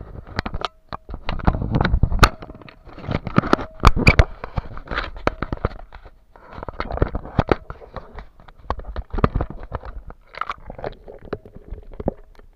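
Close handling noise on a waterproof camera housing: irregular bursts of knocks, clicks and crackly rubbing as the camera is moved about.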